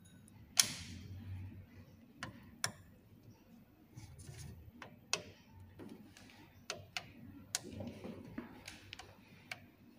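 Magnet strips being set onto the TLC densitometer's plate holder to hold the TLC plate: scattered sharp clicks, the loudest about half a second in, with light handling noise between them.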